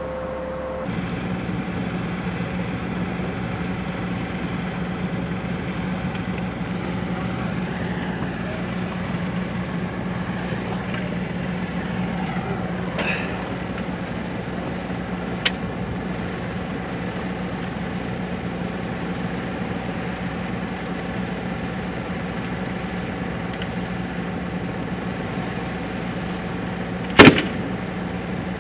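Stryker armoured vehicle's diesel engine running steadily at idle, a constant hum. One sharp, loud bang near the end.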